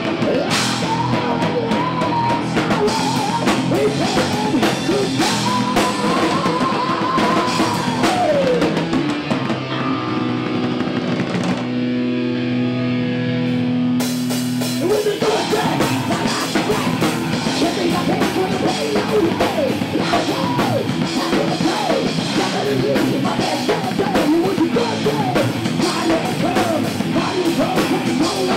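Live metal band playing: distorted electric guitars, bass guitar and drum kit. A guitar line slides down, then the drums and cymbals stop for about two seconds while a chord rings. After that the full band comes back in.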